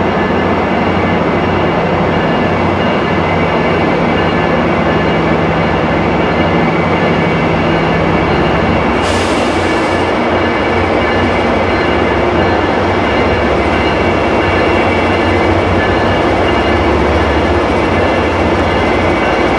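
MBTA MPI HSP46 diesel locomotive hauling a train of Rotem bilevel coaches past, its engine running with a steady low note, and a brief hiss about nine seconds in. The coaches then roll by on the rails.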